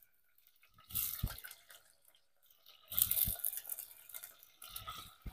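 Whole peeled potatoes dropped into a steel pot of hot oil in three batches, each a clatter of potatoes knocking on the metal and on one another, followed by a short hiss.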